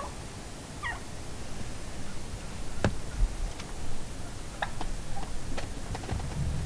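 Turkey calls: two short, wavering pitched calls in the first second, then a scattering of short, sharp clucks.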